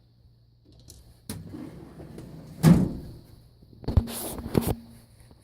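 Metal tool chest drawers and tools being handled: a few separate clunks and rattles, the loudest near the middle and two more close together near the end.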